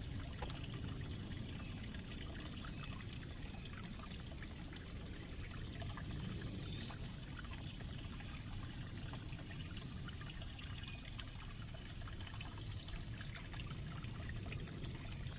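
Small stream trickling steadily over rocks.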